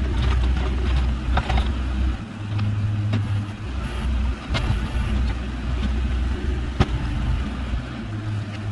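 Excavator's diesel engine running with a steady low rumble as it works the soil, with a few sharp knocks.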